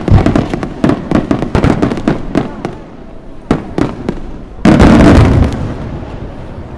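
Aerial fireworks display: rapid volleys of sharp bangs and crackling shell bursts, then two single reports. About four and a half seconds in comes one much louder shell burst, a deep boom that lasts about a second and fades.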